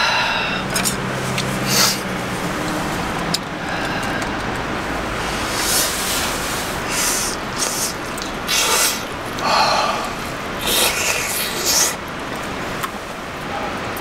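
A mountain valley stream flowing steadily. Several short, sharp noises come over it in the second half.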